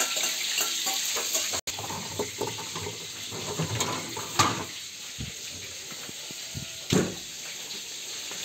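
Tap water running into a kitchen sink while a pan is washed; after a cut, a plastic food packet rustles as it is taken out of a fridge, with two short louder crinkles.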